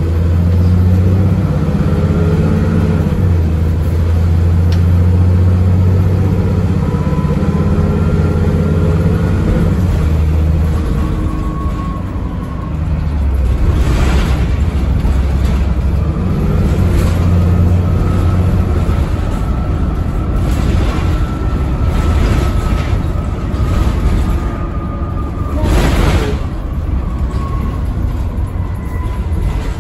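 A bus's diesel engine pulling hard, its low drone stepping in pitch and dipping as the automatic gearbox changes gear. A whine rises and falls above it, and the body gives several short clatters in the second half.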